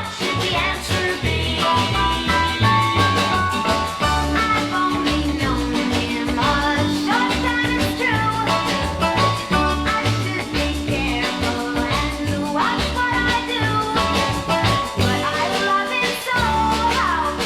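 Early-1960s pop record playing in a stereo remix: a full band with a steady drum beat and a bass line.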